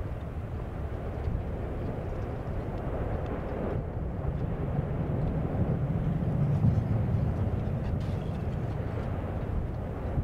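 Low, steady rumbling roar of an erupting volcano's vent and lava flows, swelling slightly about halfway through.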